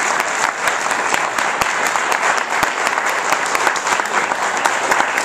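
Audience applauding at the end of a song: many hands clapping in a dense, steady patter.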